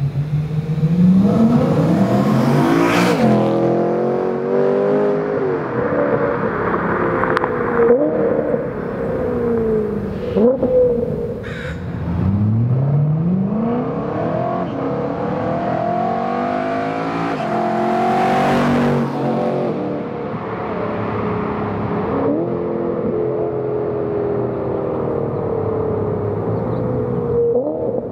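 BMW M3 E90's 4.0-litre V8 through a Laptorr aftermarket exhaust, accelerating hard through the gears, its pitch climbing and then dropping back at each upshift. It is loudest as the car passes, about three seconds in and again about eighteen seconds in.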